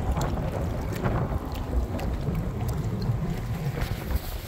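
A boat under way, wind buffeting the microphone, with water rushing along the hull.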